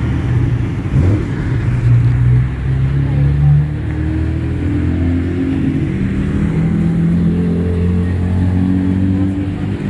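Engines of several historic race cars running at pit-lane speed as the cars roll past one after another, the engine note climbing in steps as they pick up revs.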